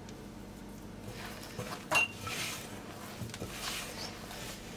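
Hand mixing crumbly flour-and-butter dough in a glass bowl: a soft scraping rustle, with one sharp clink against the glass about two seconds in.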